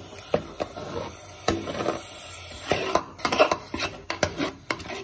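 A spoon scraping and knocking against a pot as thick maize-flour dhido is stirred and beaten, in quick irregular strokes that get busier about halfway through.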